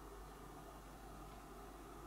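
Quiet room tone: a steady faint hiss with a low hum underneath.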